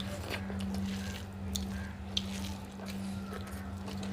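Eating sounds of rice and egg curry being eaten by hand: small wet clicks, squelches and chewing, over a steady low hum.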